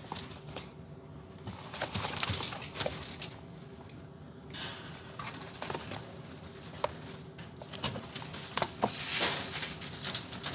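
Chinchillas scrabbling and rolling in a dust bath: a rustling hiss of dust, broken by scattered scratchy clicks of paws and the bath container.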